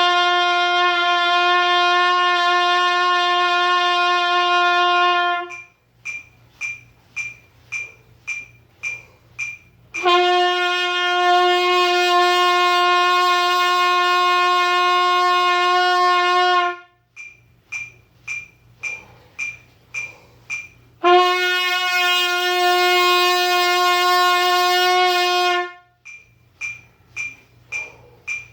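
Air horn sounding in three long, steady blasts of one unchanging pitch, each lasting about five to seven seconds. Between the blasts comes a run of short, high-pitched chirps, about two a second, over a faint low hum.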